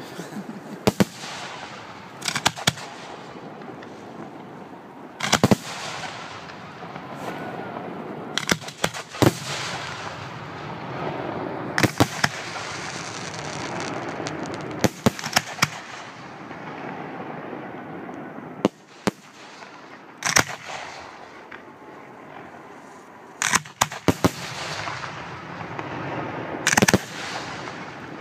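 Aerial fireworks shells bursting overhead: sharp bangs at irregular intervals of one to a few seconds, some coming in quick clusters of two or three, over a steady background noise between them.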